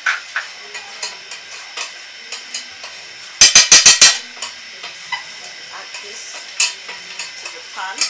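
Oil sizzling in a hot frying pan while a utensil scrapes and stirs in it. A quick run of about six sharp knocks comes about three and a half seconds in.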